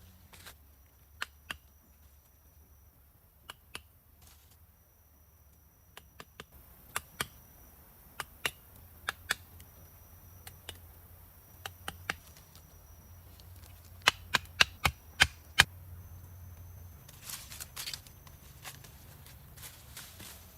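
A series of sharp knocks at irregular intervals, some in pairs, with a quick run of five louder ones about two-thirds of the way through.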